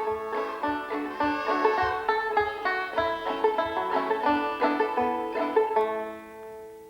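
Banjo music: a quick run of plucked notes, fading out near the end.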